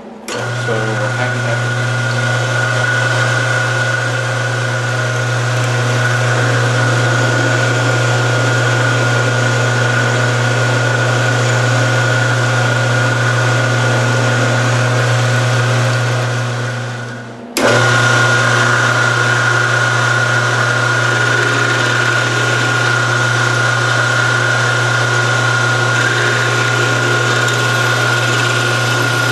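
Harbor Freight 9x20 bench lathe running under power: a steady motor hum with a high whine over it, during a turning pass. About seventeen seconds in it winds down and stops, then starts straight back up.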